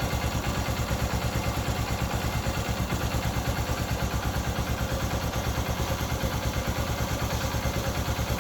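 Honda XR150's single-cylinder four-stroke engine idling with a quick, even beat, just rebuilt and running for an oil-pressure check at the cylinder head.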